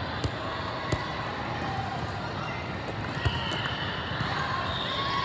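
Volleyballs being hit and bouncing on a hard court floor, a few sharp slaps, over the echoing chatter and shouts of players and spectators in a large hall.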